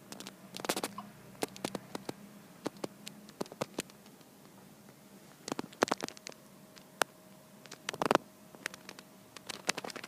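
Repeated hiccups, three or four short sharp catches a few seconds apart, with small clicks in between.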